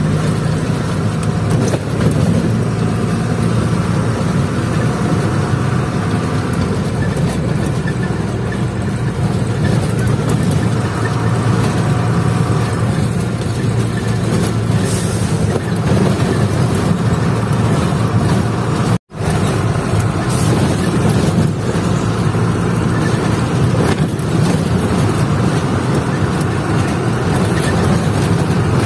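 Truck engine running steadily with road noise, heard from inside the cab while driving. There is a split-second gap of silence about two-thirds of the way through.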